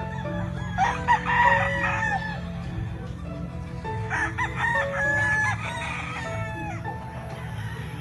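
Gamefowl rooster crowing twice: a first crow about a second in and a second, longer one about four seconds in.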